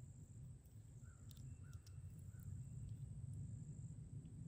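Quiet outdoor ambience: a low rumble and a steady high-pitched drone, with three faint short bird chirps a little after a second in and a couple of soft clicks.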